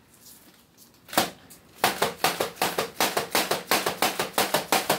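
A single sharp click, then from about two seconds in a quick, even run of sharp clicks or taps, about four a second.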